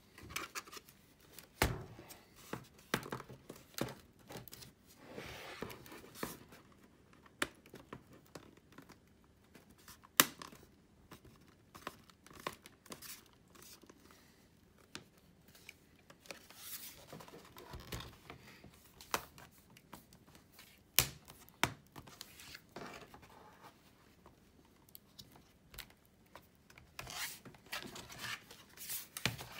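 Scattered plastic clicks, taps and knocks from handling a Sony Vaio laptop: the new keyboard pressed down into its seat and the machine turned over onto its lid, with short stretches of rustling.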